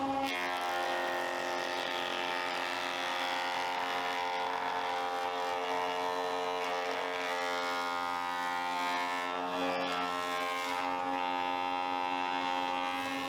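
An electric power tool's motor running steadily with a buzzing hum, with a short noisier stretch about ten seconds in.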